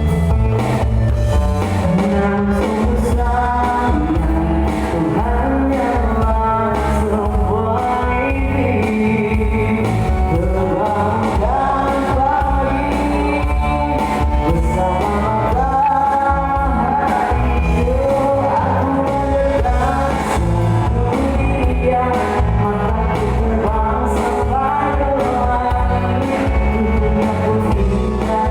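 A band playing a pop-rock song, with a singer over bass, guitar and drums.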